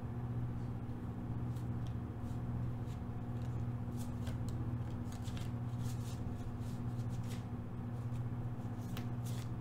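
Tarot cards being shuffled and handled: quick soft flicks and snaps in clusters, starting about a second and a half in, over a steady low hum.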